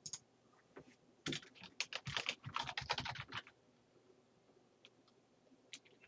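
A mouse click, then a quick run of keystrokes on a computer keyboard lasting about two seconds as a short word is typed. One or two more single clicks come near the end.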